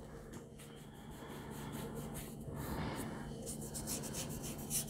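Acrylic paint pen nib rubbing across sketchbook paper in repeated strokes.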